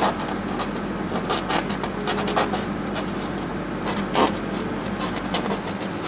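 Painting knife scraping and spreading thick oil paint on a stretched canvas in a run of short, irregular strokes, over a steady low hum.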